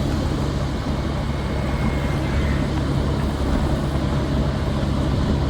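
An engine running steadily, a continuous low drone under an even rushing noise.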